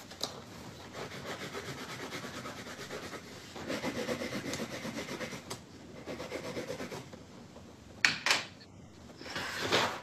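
Paper rustling and sliding as sheets and a folder are handled on a tabletop, with a couple of sharper rustles about eight seconds in.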